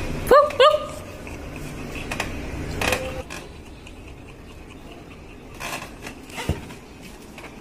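A beagle gives two short, high yelps in quick succession about half a second in, followed by softer scuffling and a few light clicks.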